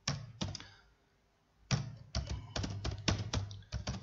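Typing on a computer keyboard: two single keystrokes, then a quick, uneven run of keys from about a second and a half in.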